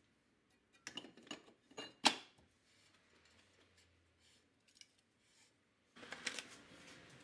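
A new brake rotor being slid over the wheel studs onto the rear hub: a quick run of light metal clinks, the loudest a sharp clink about two seconds in, then a few faint ticks.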